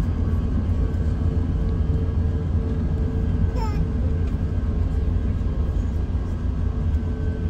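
Steady low rumble and hum of an Airbus A380's cabin, with a short high squeal falling in pitch about three and a half seconds in.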